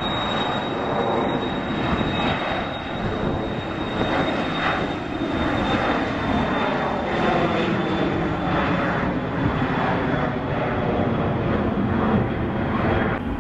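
Cessna Citation Excel business jet on its takeoff roll, its twin turbofan engines at takeoff power: a steady high whine over a loud, continuous rush of jet noise.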